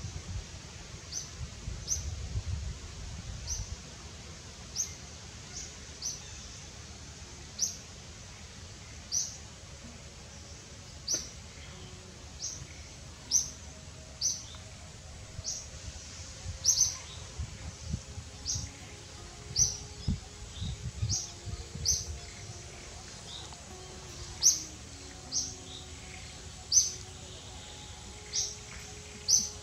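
A bird calling with short, high chirps repeated about once a second, over a low rumbling background noise.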